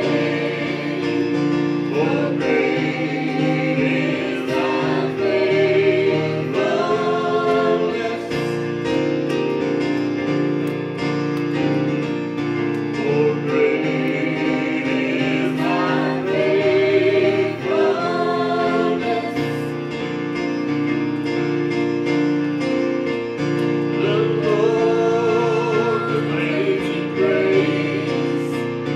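A small gospel vocal group of several women and a man singing together into microphones, with vibrato on the held notes, over steady instrumental backing.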